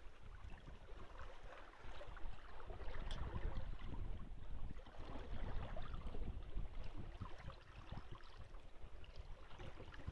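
Wind rumbling on the microphone and water swishing and gurgling past the hull of a sailboat running under spinnaker, louder for a few seconds in the middle.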